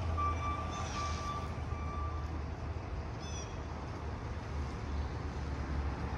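CSX freight train of hopper cars rolling past with a steady low rumble of wheels on rail. A repeating beep sounds over it during the first couple of seconds, then stops.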